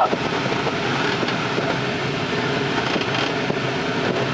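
Steady rush of airflow in a glider cockpit on a winch launch, with one short sharp sound right at the start.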